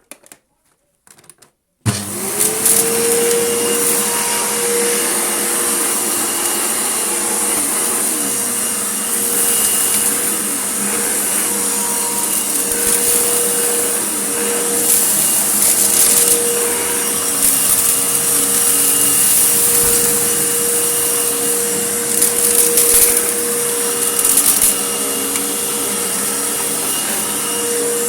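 A few clicks, then a vacuum cleaner is switched on about two seconds in. Its motor spins up quickly to a steady whine with a loud rush of suction. Short bursts of crackling come now and then as grit is sucked up.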